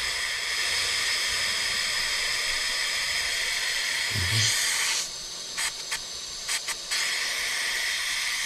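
Compressed air hissing steadily through a Stuart 10V model vertical steam engine that fails to run: the air seems to be blowing past an unseated slide valve. The hiss drops for a couple of seconds about five seconds in, broken by several short spurts as the flywheel is turned by hand, then comes back steady.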